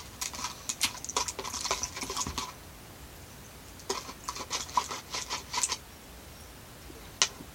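Plastic spoon stirring and scraping glue-and-borax slime in a plastic measuring cup: two bouts of quick clicking scrapes, about two seconds each, then a single click near the end.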